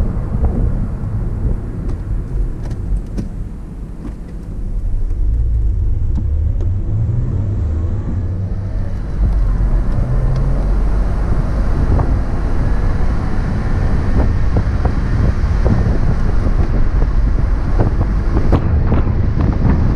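2001 Porsche Boxster's flat-six engine running as the car drives with the top down, mixed with wind rumble on the microphone and road noise. It eases off a couple of seconds in, then picks up again and holds steady for the rest of the stretch.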